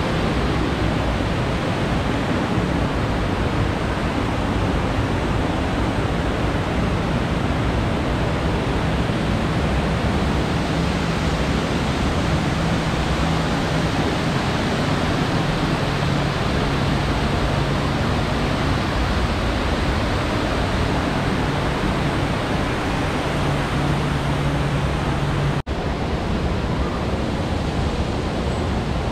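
Steady, loud rushing noise with a faint low hum underneath that wavers in pitch. The sound cuts out for an instant near the end.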